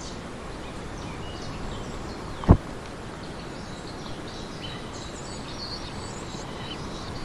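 Woodland ambience: a steady hiss with scattered faint bird chirps, and one short dull knock about two and a half seconds in.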